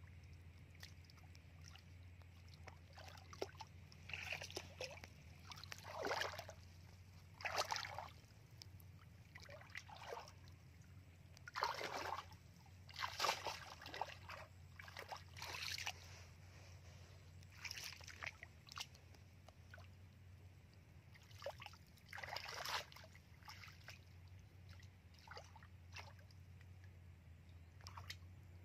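Irregular splashes and sloshing of shallow muddy water as a woven bamboo plunge basket is pushed down into it and a person wades, over a steady low hum.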